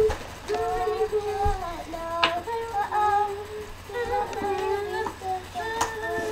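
A child singing a tune in long held notes, unaccompanied, with short breaks between phrases. A couple of sharp clicks fall in among the notes.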